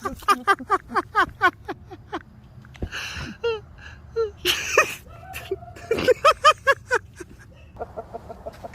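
A man's voice rattling off quick short syllables, broken by a few breathy bursts; no chainsaw engine is heard.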